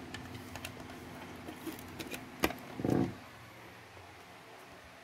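Small clicks and handling noise as modem cables and plugs are handled, with one sharp click about two and a half seconds in and a brief low sound just after. A faint steady hum lies underneath.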